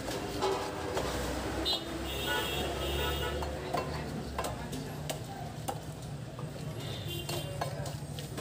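Stingray being cut into pieces on a boti, a curved blade fixed upright: scattered wet knocks and scraping as the flesh is pushed through the blade, over a steady low hum and background voices.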